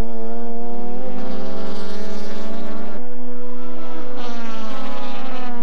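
Mazda RX-7 race car's rotary engine running at high revs, a steady high note. About three seconds in the note changes abruptly, then its pitch falls slowly toward the end as the car goes by.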